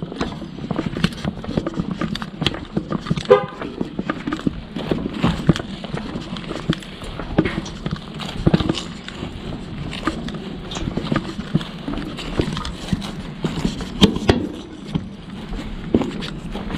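Footsteps on pavement and grass, with irregular knocks and rustling from a body-worn camera, and one brief pitched sound about three seconds in.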